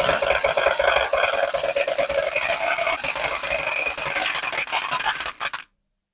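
Many marbles rolling and clattering down a wooden HABA marble-run slope: a steady rattle of dense clicks that cuts off abruptly near the end.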